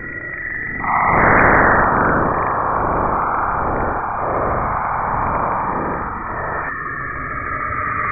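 Saturn's auroral radio emissions, recorded by the Cassini spacecraft and shifted into the range of hearing and compressed in time, heard as an eerie hiss. It swells suddenly about a second in, with sweeping whooshes, and thins to a higher hiss near the end.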